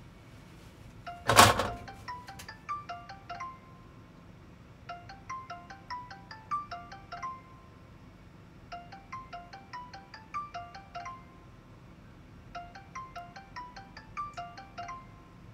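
A short loud clatter about a second and a half in, then a smartphone's outgoing-call ringback melody: a chiming tune repeating in phrases of about two seconds with short gaps while the call waits to be answered.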